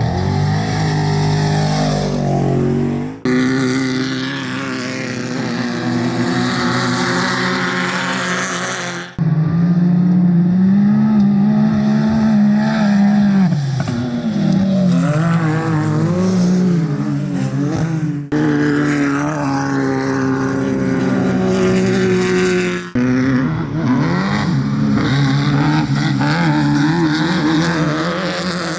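Off-road desert race vehicles' engines running hard, the pitch rising and falling with the throttle. It comes in a series of separate clips that change abruptly at about 3, 9, 18 and 23 seconds.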